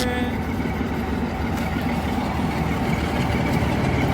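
Diesel railway locomotive engine running steadily at a station platform, a low rumble that grows slightly louder near the end.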